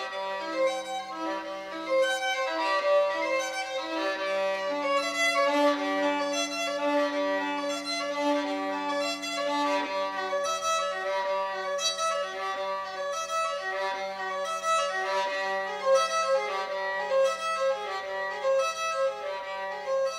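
Instrumental music: a bowed violin melody moving over a held low drone note.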